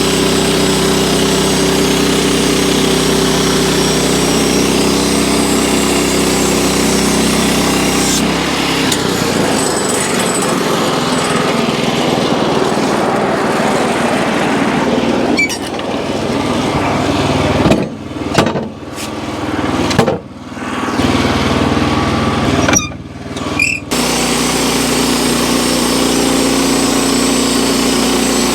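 Wood-Mizer LX25 portable band sawmill running with its small gas engine at a steady pitch. About a third of the way in it turns to a harsher, noisier sound as the band blade cuts through the red oak log, with several abrupt breaks late on, before the steady engine note returns near the end.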